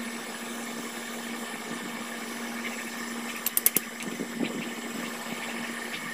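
A steady machine-like hum, with a quick run of four or five sharp metallic clicks about three and a half seconds in as a long metal rod is pushed into a wood fire, and a few fainter ticks just after.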